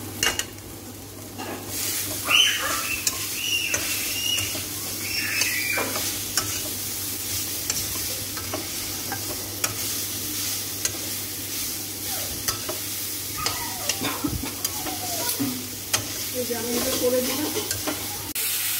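Flat metal spatula stirring and scraping cauliflower and potato pieces in a metal kadai, with many sharp clicks of metal on metal over the sizzle of the vegetables frying in oil.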